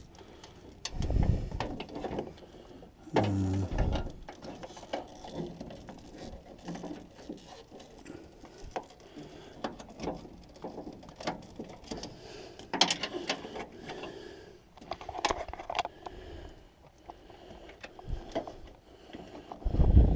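Hands working wiring-loom connectors and wires inside a car door: scattered small plastic clicks and rustles, with a few dull low knocks, the heaviest at the very end.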